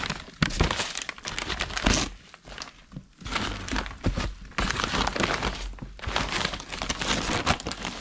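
Old, crumpled newsprint crinkling and rustling in several bursts as the newspaper is handled and opened out by hand.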